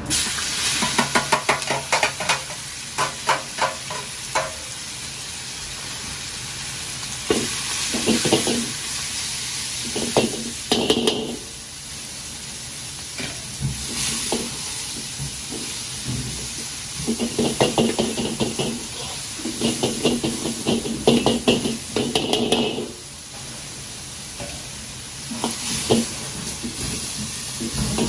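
Sliced pork sizzling in a hot oiled wok, with a metal ladle scraping and knocking against the wok in quick runs as the meat is stirred and spread out.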